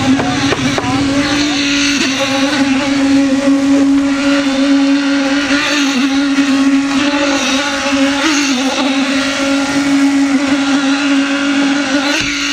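Concrete poker vibrator running, its motor giving a loud, steady hum on one held tone that dips slightly in pitch now and then, over scraping from the wet concrete being worked.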